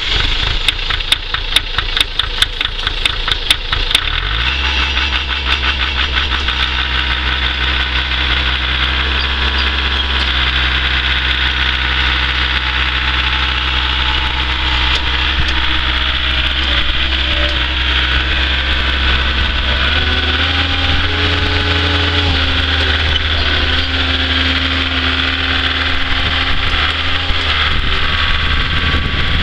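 Diesel engine of a Ditch Witch 400SX walk-beside vibratory plow turning over in a rhythmic chug, catching about four seconds in, then running steadily. About two-thirds of the way through, the engine speed rises and holds at a higher pitch.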